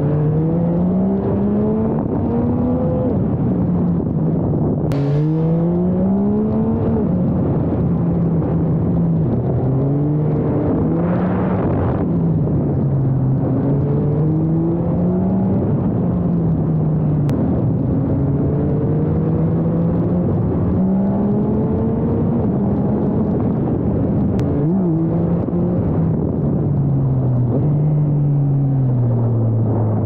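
Yamaha MT-09 SP's 890 cc inline-three engine pulling under riding, its pitch rising through each gear and dropping back at the shift, over and over. Wind rushes steadily across the microphone throughout.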